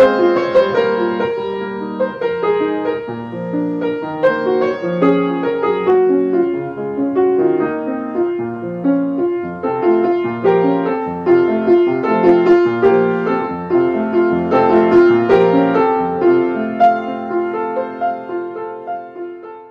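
Solo piano being played, a flowing run of many notes and chords that fades out at the very end.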